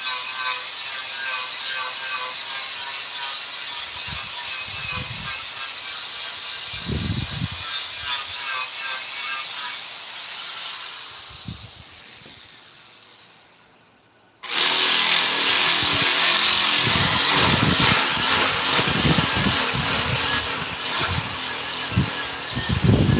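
Power tool working on wood: a steady machining noise fades away over the first half, then a louder grinding, sanding-type noise cuts in abruptly about halfway through, with occasional low knocks.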